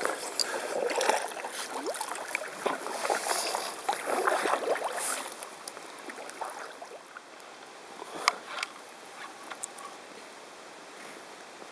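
An inflatable canoe scraping and rustling as it is dragged over dry grass. About halfway through it changes to quieter paddling on calm water, with a few sharp knocks and drips.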